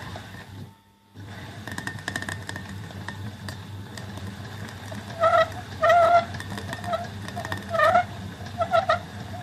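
A pedal-controlled sewing machine motor, converted to turn a fishing rod for thread wrapping, starts up about a second in and runs with a steady hum and fine clicking. From about halfway, loud short high squeaks or calls come again and again over it.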